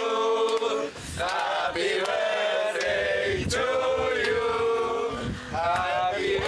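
A small group of people on the boat singing a birthday song together, in long held notes.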